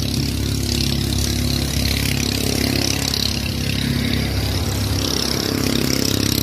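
An engine running steadily nearby, with a steady high-pitched hiss above it.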